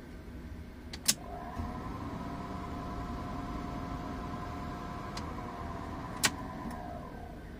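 Car engine idling. About a second in comes a sharp click, and then the electric radiator cooling fan, switched on by the scan tool's fan test together with the A/C clutch relay, runs with a steady whine over the engine while idle speed rises. A second sharp click comes about six seconds in, and the whine slides down in pitch near the end.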